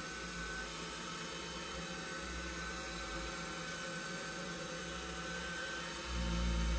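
Hutt DDC55 window-cleaning robot's suction fan running with a steady whir and hum while it cleans the window glass; the sound swells briefly, deeper and louder, near the end.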